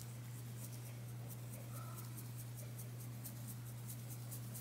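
Lawry's seasoned salt being shaken from its plastic shaker bottle into a bowl of sliced sausage: faint, rapid scratchy ticks with each shake, the salt barely coming out. A steady low hum runs underneath.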